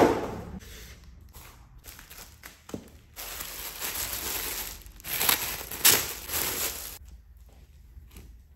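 Clear plastic wrapping crinkling and rustling as a wrapped item is picked up and handled, densest from about three to seven seconds in, then dying down. A sharp knock at the very start as a small cardboard box is set down on a wooden table.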